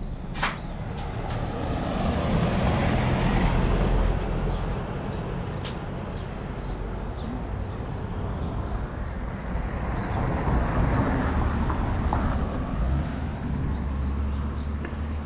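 Road traffic: passing vehicles whose engine and tyre noise swells and fades twice, around two to four seconds in and again around ten to twelve seconds, over a low rumble. A single sharp click about half a second in.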